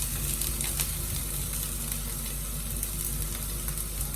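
Chopped onion frying in hot cooking oil in a pan: a steady sizzle, with a few faint clicks.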